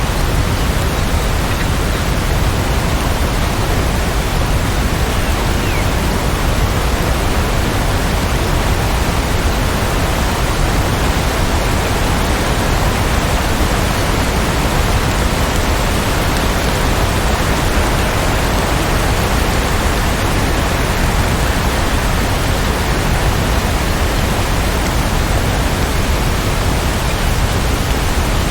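Steady heavy rain, an even hiss that holds at one level throughout.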